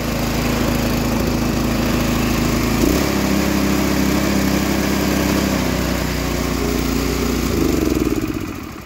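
Predator 212 single-cylinder snowblower engine in stock form, with its open stock airbox, running steadily. The sound shifts slightly partway through and dies away near the end.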